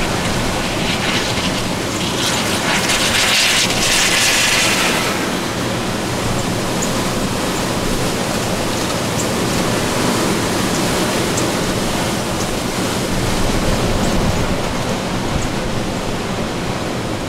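Hurricane-force wind rushing steadily, with a stronger, hissier gust from about two to five seconds in.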